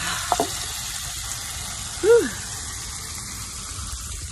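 Bacon sizzling in a skillet, a steady hiss. A short squeak at the start and a louder gliding squeak about two seconds in, rising then falling.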